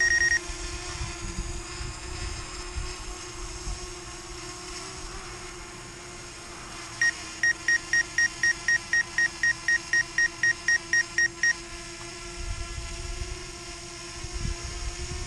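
DJI Spark drone hovering with a steady hum. Partway through, the flight controls give a rapid run of warning beeps, about four a second, for some four seconds; the pilot puts such warnings down to the battery being too cold. Wind buffets the microphone near the end.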